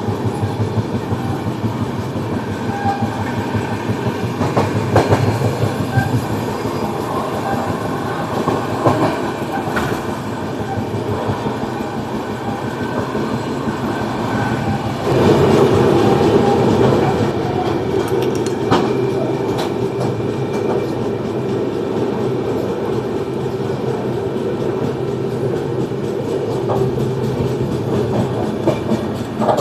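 Moving passenger train: a steady rumble of wheels on the rails, with the clickety-clack of the wheels passing over rail joints. About halfway through the rumble gets louder and stays up.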